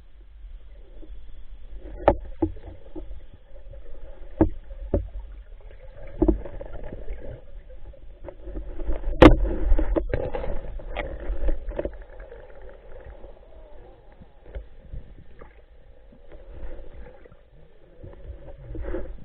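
Muffled water movement heard underwater during spearfishing, with a series of sharp knocks. The loudest knock comes about nine seconds in.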